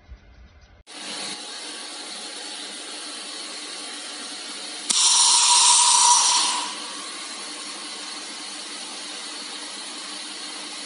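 Fiber laser welding machine: a steady machine hiss with faint hums starts abruptly about a second in. About five seconds in, a much louder, brighter hiss with a steady high hum comes in sharply, lasts under two seconds and drops back to the steady hiss.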